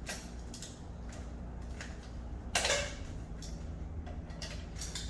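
Small knocks and clicks of parts being worked loose on an engine during hand disassembly, with one louder clunk about two and a half seconds in, over a low steady hum.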